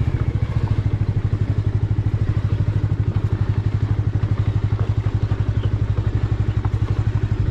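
Bajaj Avenger 180 motorcycle's single-cylinder engine running steadily while riding, heard from the rider's seat, with a fast, even pulse to its beat.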